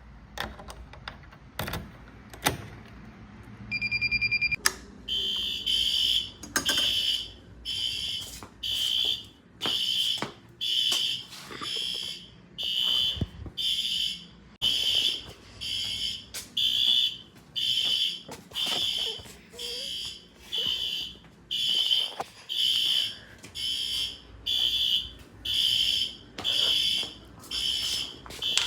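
A few knocks and clicks, then about four seconds in a fire alarm starts sounding: a high-pitched electronic beep repeating about once a second.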